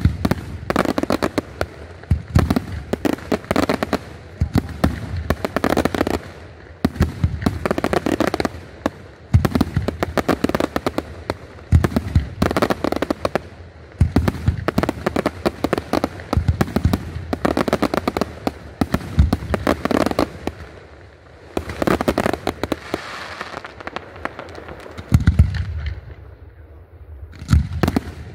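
Aerial firework shells bursting in a steady barrage: volleys of sharp bangs and dense crackle every second or two. The volleys ease off briefly near the end before one more burst.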